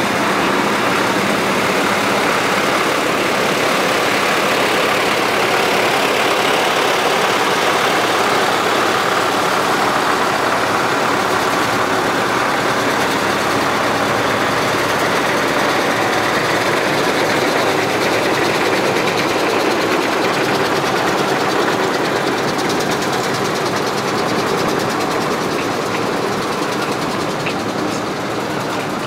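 Tractor's diesel engine running steadily at low speed as it drives past, easing off somewhat near the end.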